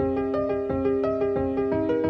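Background music: a keyboard or piano melody over sustained chords with a steady pulse.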